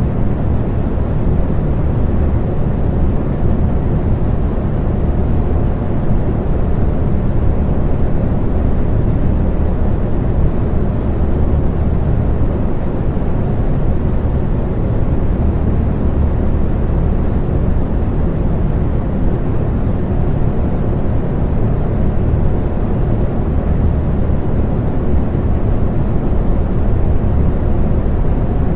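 Electric fan running steadily: an even, low whooshing drone with faint steady hum tones above it.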